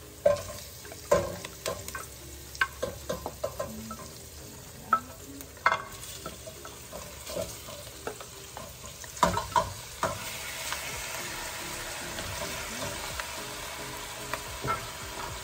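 A wooden spoon knocking and scraping pieces of boiled beef feet and tripe out of a glass baking dish into a stainless pot of sautéed onion and garlic, with sharp clicks and thuds as the pieces drop in. From about ten seconds in, a steady sizzle builds as the wet meat fries in the hot oil and the spoon stirs it.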